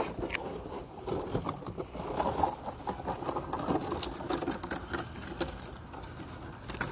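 Flattened cardboard boxes scraping and scuffing over asphalt as a toddler pushes them along, with irregular light knocks and rattles of the cardboard.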